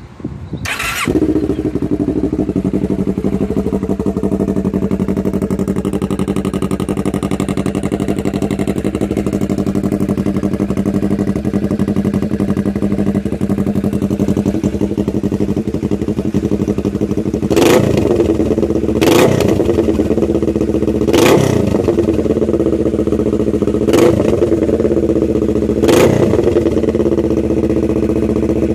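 2007 Kawasaki Ninja 650R's parallel-twin engine starting about half a second in and settling into a steady idle. In the second half it is revved in five quick throttle blips. It runs through a Yoshimura muffler that is missing its end cap, baffle and packing, which makes the exhaust very, very loud.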